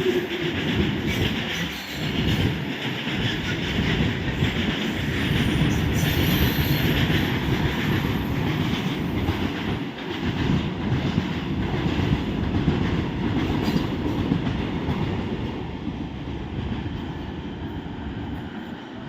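Freight train of petroleum tank wagons rolling past at speed without stopping: a steady rumble and clatter of wheels on the rails, easing off a little near the end.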